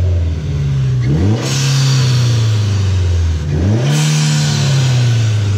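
Mitsubishi Lancer Evolution X's turbocharged 4B11T four-cylinder, running catless and pretty loud, revved twice from idle. Each blip is followed by a loud hiss of air as the throttle closes, the blow-off valve venting, while the revs sink back slowly.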